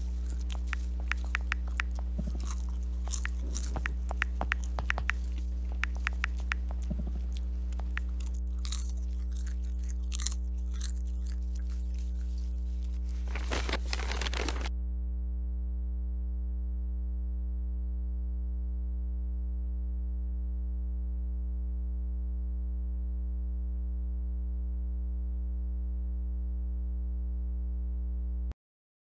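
A steady low electrical hum with many overtones, cutting off just before the end. Over it, during the first half, crunching and chewing of a crunchy snack, with a denser crunching burst just before it stops about halfway through.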